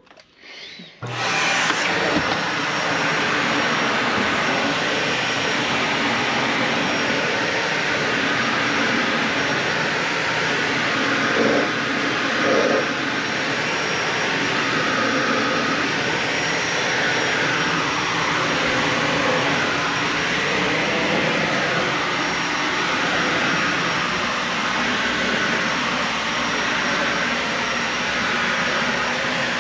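Dyson Ball Animal 3 Extra upright vacuum cleaner starting up about a second in, then running steadily over carpet. There are two brief louder spots near the middle.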